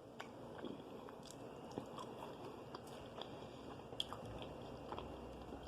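A person chewing food, heard as faint scattered mouth clicks and smacks.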